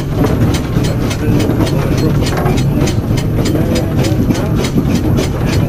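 Third-scale Marshall steam roller's exhaust beating steadily, about three to four chuffs a second, over a low steady rumble.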